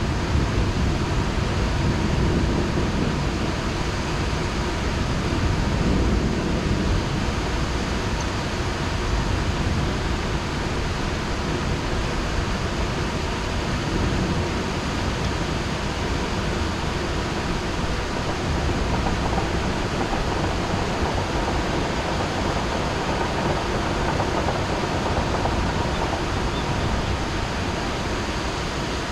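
Heavy rain falling steadily: an even, unbroken hiss. A low rumble in the first several seconds dies away.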